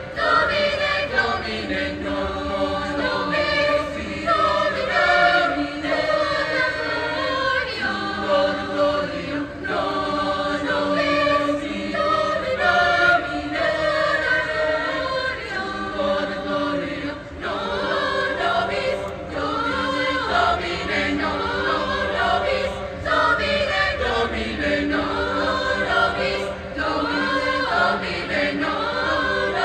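Mixed chamber choir of high-school singers, women's and men's voices singing together in parts.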